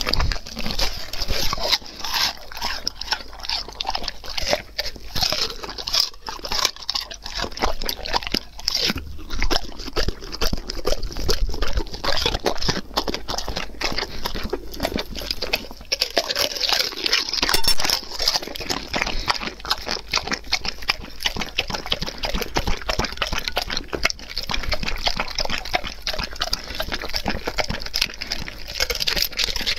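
Dog eating raw food off a plate right beside a clip-on microphone: a dense, irregular run of wet smacking, licking and crunching chews.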